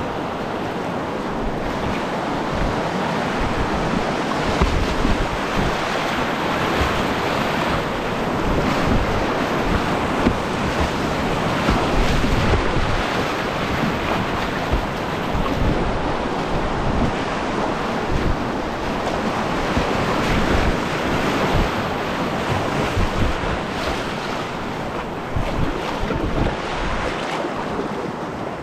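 Rushing whitewater of a creek's rapids around a kayak, with wind buffeting the microphone.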